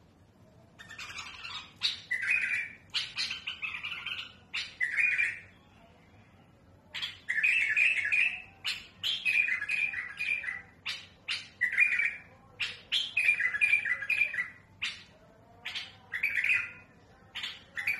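Caged bulbul singing a string of short, rich phrases with a harsh edge and sharp clicking notes, pausing for about a second and a half partway through before carrying on. It is the song of a trained tutor bird kept to teach young bulbuls.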